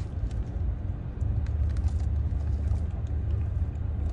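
Car's engine idling, heard inside the cabin as a steady low rumble, with a few faint clicks over it.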